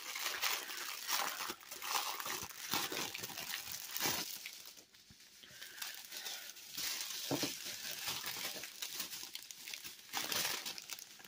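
Thin clear plastic packaging of diamond-painting drills crinkling and rustling as it is handled, in irregular bursts with a short lull about halfway.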